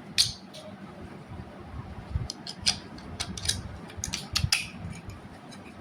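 Light clicks and taps at irregular intervals, about a dozen of them, the sound of a small hard object being handled.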